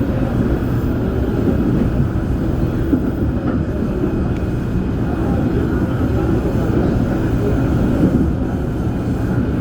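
Korail Line 4 class 341000 IGBT-VVVF electric multiple unit running on the line, a steady, even rumble of wheels on track.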